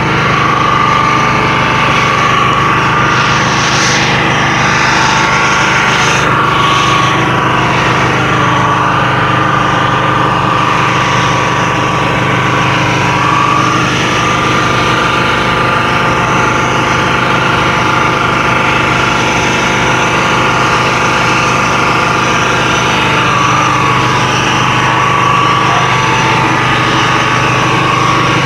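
Loud, steady machine drone of a running motor, with a low hum and several steady whining tones, plus brief hisses about four and six seconds in.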